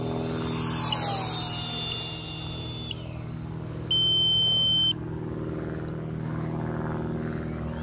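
Phase 3 F-16 model jet passing overhead, its high whine falling in pitch as it goes by in the first few seconds, over a steady low hum. About four seconds in, a loud electronic beep lasts about a second.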